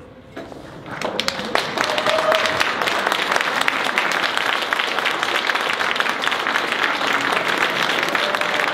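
Audience applause that builds up within the first second as the last note of the tango orchestra dies away, then holds steady.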